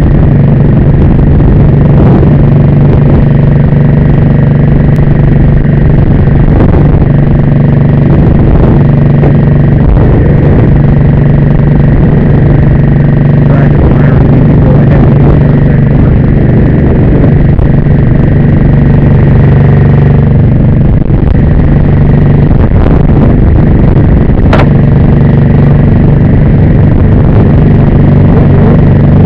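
Engine on a wildland fire brush truck running steadily: a constant, loud low hum with no change in pitch.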